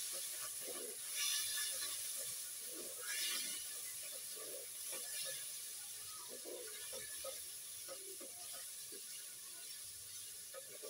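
Onion and liver frying in hot oil in a pot: a steady sizzle that surges briefly about a second in and again about three seconds in, with a few small clicks and knocks.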